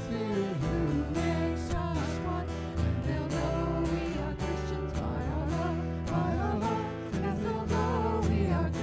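Christian worship song: a voice singing with guitar accompaniment.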